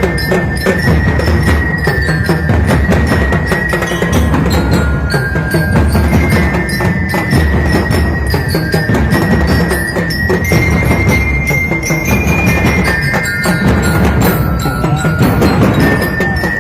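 Ati-atihan street band playing: dense, driving drumming with a high melody of held notes over it.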